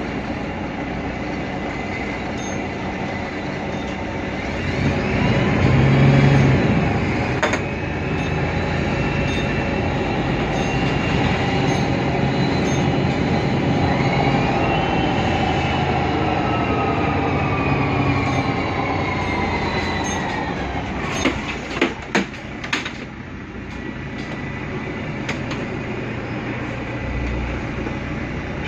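Mercedes-Benz Citaro city bus running in traffic: the OM 906 hLA six-cylinder diesel and Voith DIWA automatic gearbox with a whine that rises as the bus pulls away, swells loudest about six seconds in, then slowly falls in pitch as it slows. A few sharp knocks come a little over twenty seconds in.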